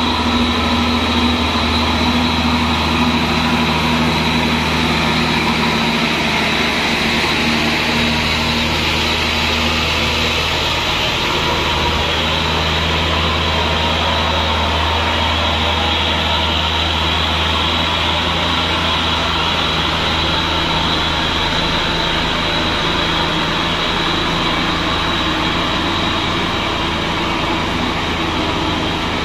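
Diesel engines of Mitsubishi Fuso dump trucks running steadily, a deep continuous engine hum with no pauses.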